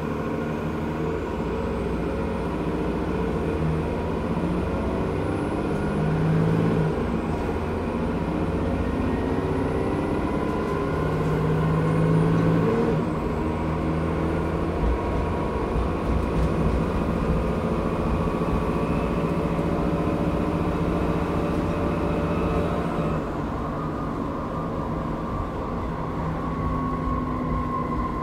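Transbus ALX400 Trident double-decker bus heard from inside the saloon, its rear-mounted diesel engine and drivetrain running on the move. A high whine rises as the bus gathers speed and dips briefly about 7 and 13 seconds in as the gearbox changes up. The whine stops about 23 seconds in, and the running note then falls as the bus eases off.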